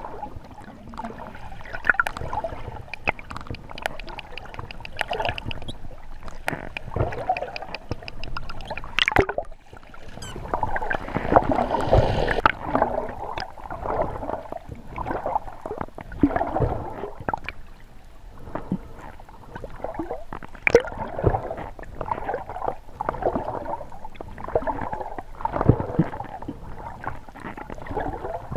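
Wild dolphins vocalising underwater, with rapid trains of clicks and other calls, over bubbling, gurgling water noise from the swim.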